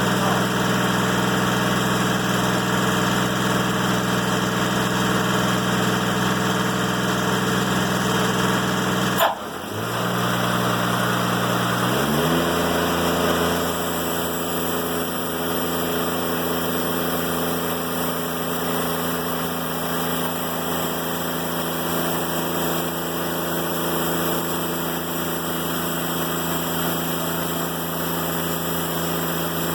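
Diesel engine of a Timberking 1400 sawmill running steadily. About nine seconds in there is a sharp break, then the engine note rises over about two seconds and holds at a new, steady speed.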